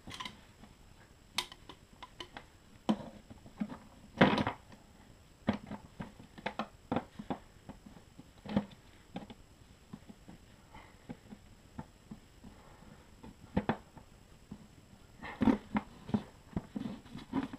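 Irregular clicks, scrapes and knocks of a screwdriver and a rubber gas hose being worked through the plastic side panel of a Honda EU2000 generator. The loudest knocks come about four seconds in and again near the end.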